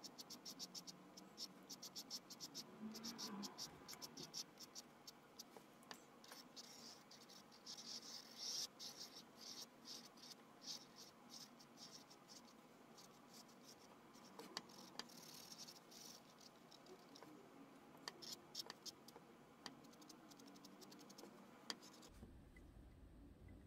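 Faint, rapid scratching of a marker tip drawing short strokes over a stretched canvas, in quick irregular runs, stopping near the end.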